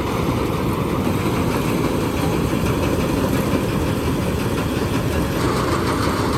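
Balkar 654 combine harvester running steadily, a loud, even engine and machinery drone.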